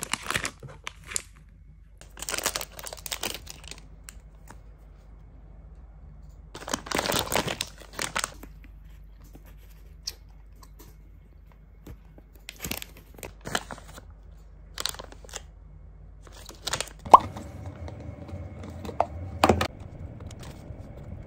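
A plastic candy wrapper crinkling and a foil gummy pouch being torn open, in several rustling bursts, the largest about seven seconds in. Later a spoon clicks and scrapes in a plastic container of powdered starch, over a faint steady hum.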